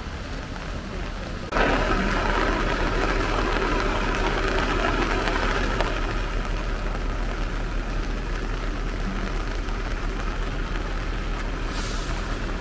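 Steady rushing noise of water outdoors. It gets suddenly louder about a second and a half in, and a brief high hiss comes near the end.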